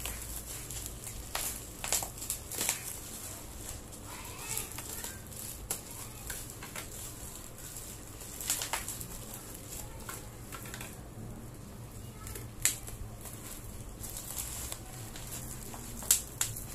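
Scissors snipping and hands handling a parcel's plastic bubble-wrap packaging: scattered irregular snips, crinkles and crackles, with two sharper clicks near the end.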